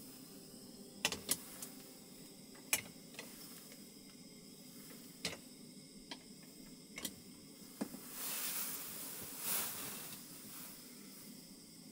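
Light clicks and taps of cooking gear while a hot sandwich grills in a press on a stove. About eight seconds in, a soft sizzling hiss swells for a couple of seconds and fades.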